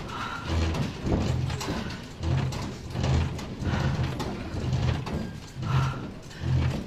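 A courtroom's walls, fixtures and furniture rattling and creaking under earthquake shaking, with a heavy, uneven knocking about once or twice a second.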